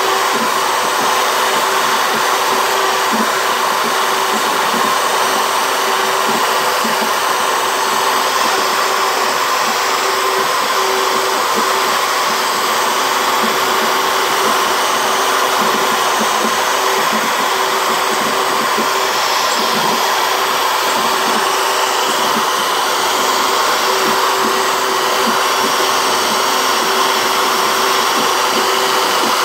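CNC router spindle motor running at a steady high speed while its bit carves letters into a plywood plaque. It is a constant, even motor whine with cutting noise.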